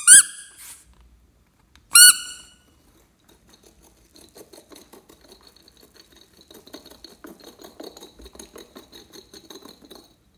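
Spiky rubber toy ball squeaked by hand: two quick squeaks at the start and a third about two seconds in, each a short squeak that bends in pitch. From about three seconds in, a run of faint, quick crackling ticks goes on until near the end.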